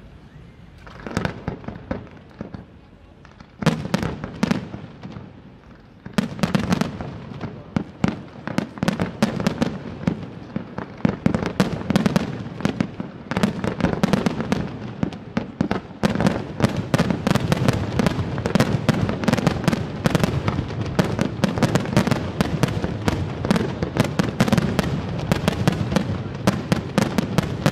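Fireworks display: aerial shells bursting, a few separate bangs at first, then from about six seconds in a dense, rapid barrage of bangs and crackling that builds toward the end.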